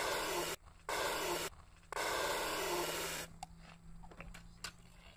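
Aerosol spray can hissing in three bursts, the first two short and the third over a second long.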